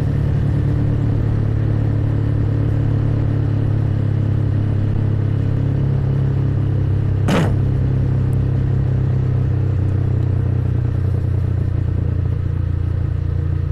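Motorcycle engine running at a steady pace while riding. A single sharp click comes about seven seconds in.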